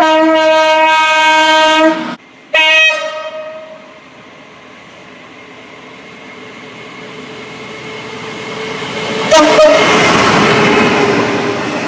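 Train horn sounding a long steady blast, then a shorter second blast that fades away. A few seconds later the running noise of a train builds up and stays loud, with a brief horn toot about nine seconds in.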